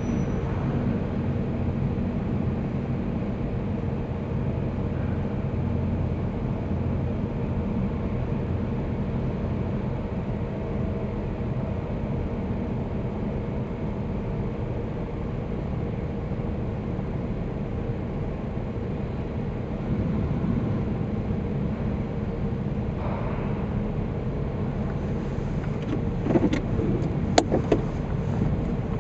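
Steady low rumble of a car's engine and running noise, with a few sharp clicks and knocks near the end.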